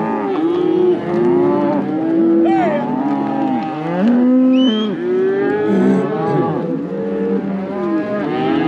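A herd of cattle mooing and bawling over one another without a break, many calls overlapping, as the herd is driven along.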